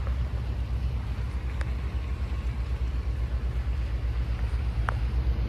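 Low, fluttering rumble of wind buffeting the microphone, with two faint clicks, one about a second and a half in and one near the end.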